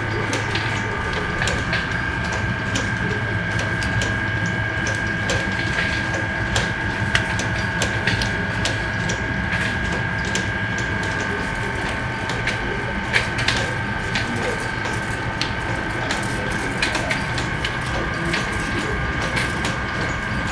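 Tulumba dough extruding machine running, a steady motor hum with a high whine, through frequent irregular crackles and clicks as cut dough pieces drop into the pan of oil.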